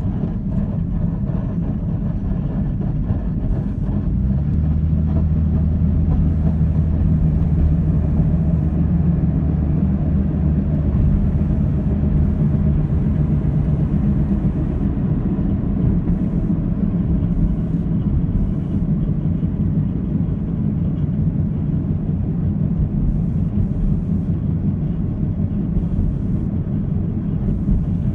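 Steady low mechanical drone from a running motor, with a humming pitch that grows a little stronger about four seconds in.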